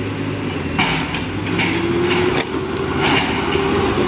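JCB backhoe loader's diesel engine working under load, with a whine that rises slightly about a second and a half in and holds. About four sharp clanks and crunches come from the bucket pushing debris.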